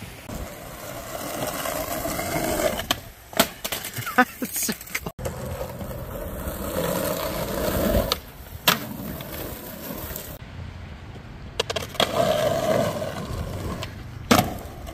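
Skateboard wheels rolling over rough, cracked asphalt, broken several times by sharp clacks of the board popping and hitting a concrete curb ledge and landing. Three separate takes run one after another.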